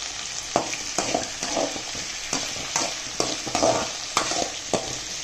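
Perforated steel ladle scraping and knocking against a metal kadai about twice a second, stirring shallots, green chillies and dals frying in sesame oil over a steady sizzle.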